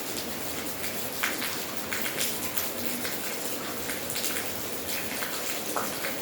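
Steady rain falling, with individual drops ticking sharply and irregularly on a nearby surface over the even hiss.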